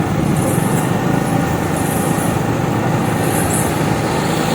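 A heavy vehicle running steadily, its engine and road noise making a continuous low rumble. A faint high hiss comes and goes about every second and a half.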